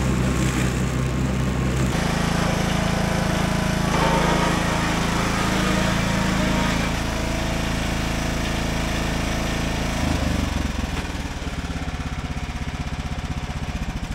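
John Deere GX75 riding mower's engine running steadily. About ten seconds in, its note drops and it settles into slower, quieter running with an even pulse.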